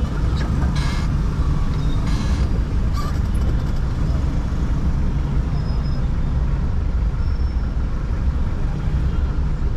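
Dense, slow-moving city traffic: a steady low rumble of car and motorcycle engines, with two short hissing bursts about a second and about two seconds in.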